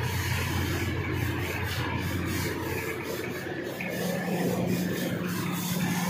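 CNC laser cutting machine cutting steel sheet: a steady hiss over a low machine hum, with a steady deeper tone joining about four seconds in.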